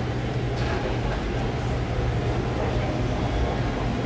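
New York City Subway shuttle train approaching the platform: a steady rumble with a constant low hum.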